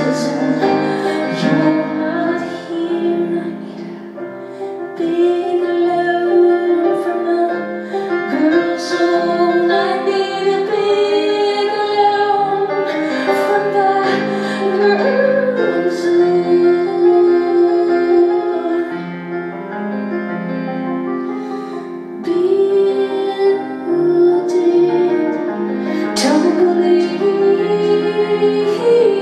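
Music: a woman singing long, wavering held notes over instrumental accompaniment.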